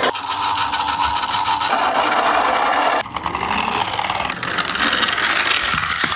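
Toy garbage trucks rolling on a wooden board, their plastic wheels and toy drive gearing making a steady rattling whir. The sound breaks off and changes abruptly about three seconds in as a different truck takes over.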